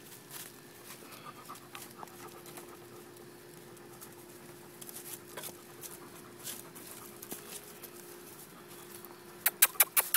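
Ten-week-old Doberman Pinscher puppies panting and scuffling at play. Near the end a fast run of sharp, loud sounds starts, about seven a second, the loudest thing heard.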